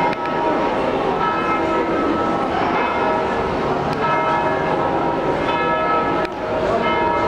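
Church bells ringing together in a full peal, many bell tones overlapping and sounding continuously.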